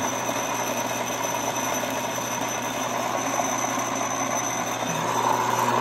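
Timken lubricant test machine's electric motor running steadily with no load on the test block: an even machine hum, with no metal-on-metal grinding.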